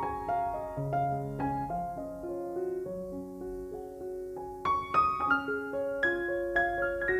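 Background piano music: a gentle melody of single notes, denser and brighter in the second half.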